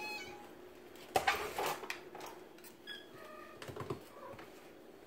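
Faint light clicking and clattering of kittens scampering on a vinyl kitchen floor, loudest in a short flurry about a second in. A couple of brief, faint high-pitched tones follow about three seconds in.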